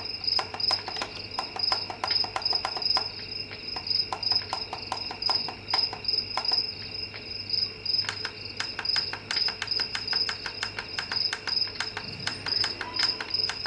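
Sleep sound machine playing a recorded night-insect track: crickets chirping in a steady, rapid pulse.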